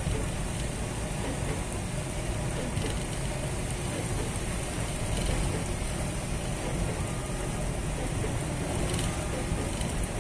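Steady road noise inside a moving camper van's cab: engine running and tyres on wet pavement.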